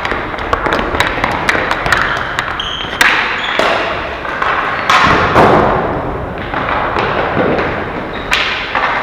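Ball hockey play: a rapid scatter of stick clacks and ball knocks, with heavier thuds against the boards about three and five seconds in, echoing in a large hall.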